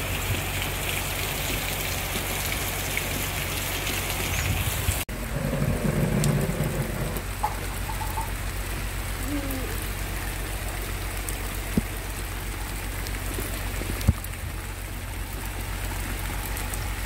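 Heavy tropical rain falling steadily on garden plants and wet ground, a dense even hiss. Two brief sharp taps stand out in the second half.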